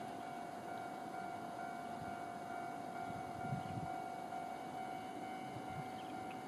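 Level-crossing warning alarm sounding continuously, a steady high electronic tone, the signal that a train is approaching. A faint low rumble comes and goes underneath, loudest about three and a half seconds in.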